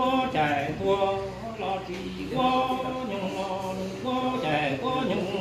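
A man singing an unaccompanied chant-like song, holding steady notes in long phrases with short breaks between them.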